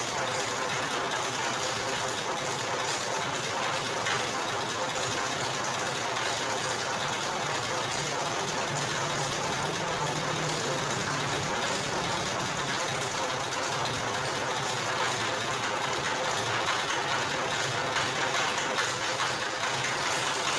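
Motor-driven sugarcane crushing machine running steadily as a bundle of cane stalks is drawn into its rollers.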